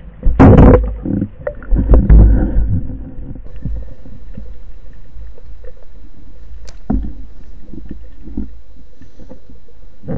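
Underwater: a band-powered speargun fired at a common dentex, a loud sharp burst about half a second in and another about two seconds in. After that comes steady low underwater rumble with scattered clicks while the speared fish is held on the shaft.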